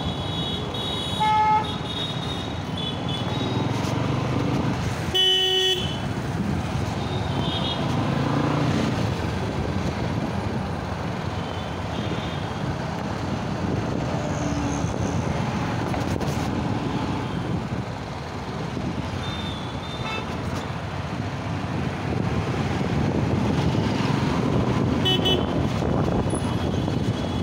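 Busy city-street traffic heard from a moving motorbike: a steady mix of engines and road noise, with several short vehicle-horn toots, the loudest about five seconds in.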